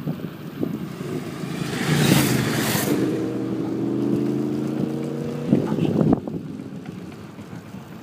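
Two motorcycles passing close by on the road, their engines growing loudest about two seconds in, running on with a steady pitched note and then fading. A brief loud burst of noise comes about six seconds in.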